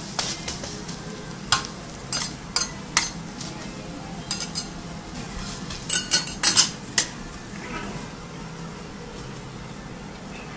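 Okonomiyaki sizzling steadily on a hot teppanyaki iron griddle. Sharp metal clinks of a spatula on the griddle come singly and in small clusters, busiest about six to seven seconds in.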